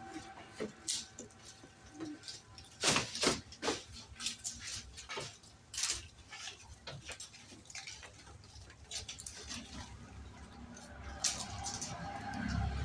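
Goats moving about in their pen: scattered light clicks and rustles, the loudest a quick cluster about three seconds in, with a low rumble near the end.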